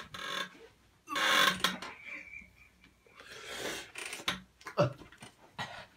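A person breathing hard through the mouth in pain, with sharp hissing breaths and a brief groan, his mouth burning from extreme sour candy.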